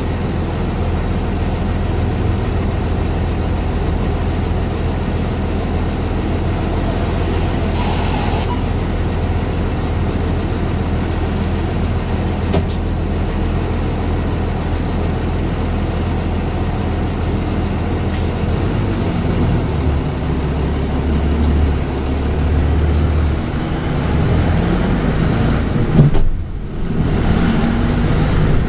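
A Mitsubishi Fuso bus's diesel engine, heard from inside the passenger cabin, idles steadily while the bus waits. About two-thirds of the way through, the engine note changes and gets louder as the bus pulls away. A short, loud sound comes near the end.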